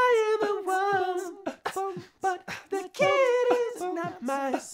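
A cappella multitrack vocals: one man's layered voices singing held notes over beatboxed drum hits and vocal bass booms.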